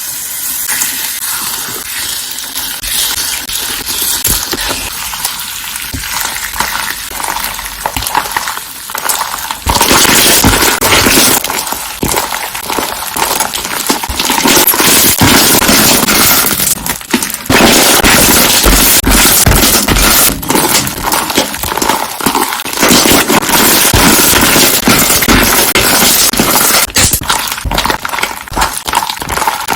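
Slime being squeezed and pressed, its trapped air bubbles popping in dense, rapid crackles. Much louder from about ten seconds in.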